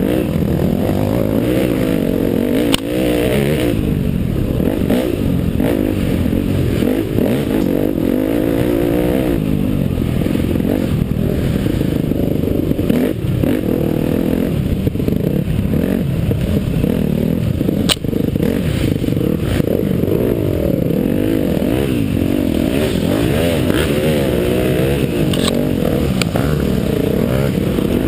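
Off-road dirt bike engine at race pace on a wooded trail, heard close from the rider's helmet. Its note keeps climbing and dropping as the throttle is worked through the turns. Two sharp knocks come about three seconds in and again around eighteen seconds.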